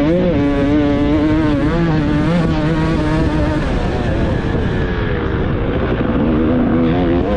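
A 300cc two-stroke motocross bike's engine running hard under the rider, its pitch shifting up and down with the throttle. The engine note weakens about four seconds in and comes back strongly near the end, with wind noise on the helmet-mounted microphone.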